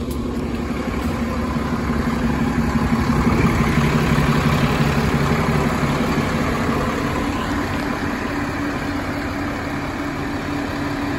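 Diesel engine of a 2008 New Flyer D40LF city bus idling at the curb, heard from just behind the bus as a steady low hum that grows louder for a few seconds around the middle.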